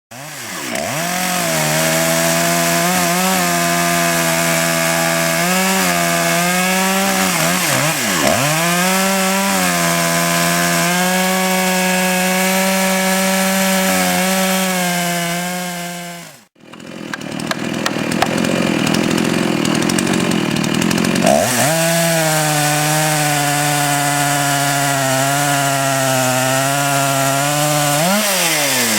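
Chainsaw in a Granberg small log mill running at high revs while ripping along a log, its pitch dipping now and then under load. It breaks off abruptly about halfway, comes back, and its revs fall away near the end.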